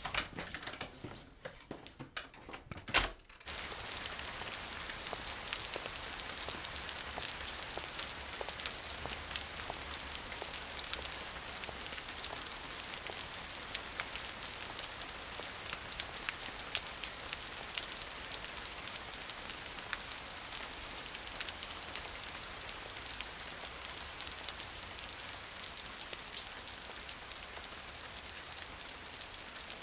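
Steady rain falling and pattering on wet pavement, starting abruptly about three and a half seconds in. Before it, a quiet room with a few soft knocks and one sharper knock just before the rain begins.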